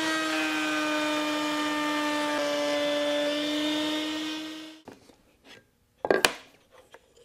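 Table-mounted router with a 1/4-inch bit running at high speed and cutting a slot in a wooden piece, its steady whine dipping slightly in pitch under the load of the cut. The motor sound stops abruptly about five seconds in. A couple of sharp wooden knocks follow about a second later.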